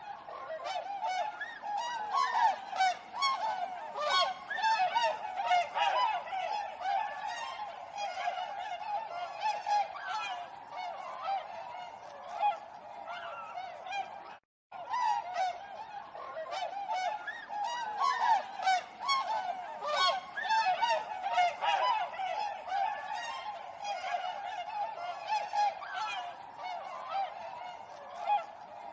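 A flock of swans honking, many overlapping calls at once in a continuous chorus, with one brief drop-out about halfway through.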